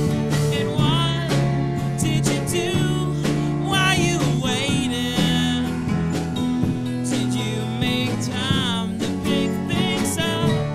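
A live band playing a song on strummed acoustic guitars and electric guitar, with drums and cymbals keeping a steady beat.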